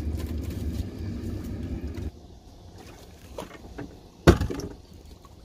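A steady low rumble that stops abruptly about two seconds in, then a single sharp knock on the aluminum boat a little past four seconds, the loudest sound, with a brief ringing tail.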